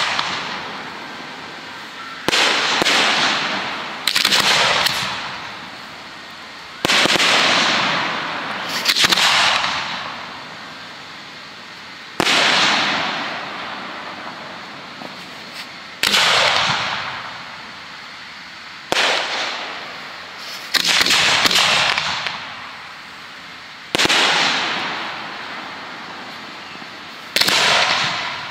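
Aerial fireworks shells going off one after another during a display: about ten sharp reports every two to four seconds, each trailing off over a second or two.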